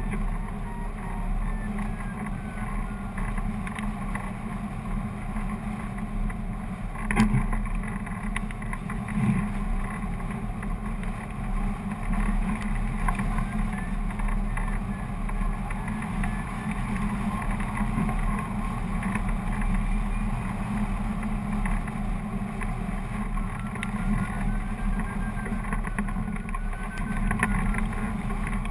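Steady rush of airflow over a camera mounted on a hang glider in flight: wind noise on the microphone with a low rumble. A single sharp knock about seven seconds in.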